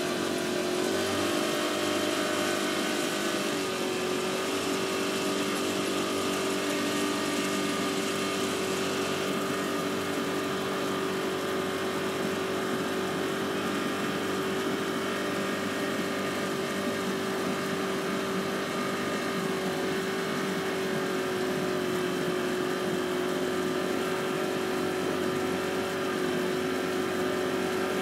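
Boat engine running steadily as the boat cruises, a constant droning hum that shifts slightly in pitch in the first few seconds and then holds steady.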